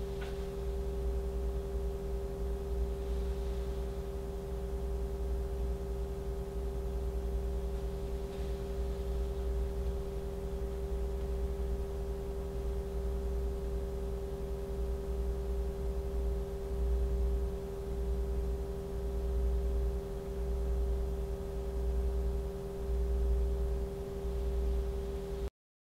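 A PC cooling fan spinning in open air at low speed, a steady hum with one clear tone and a low rumble that swells and fades slowly in the second half.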